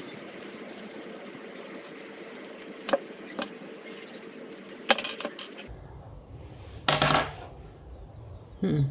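Screwdriver and small screws clicking and clinking as a soldering iron's plastic handle is unscrewed and pulled open: a series of separate sharp clicks, the loudest about five and seven seconds in.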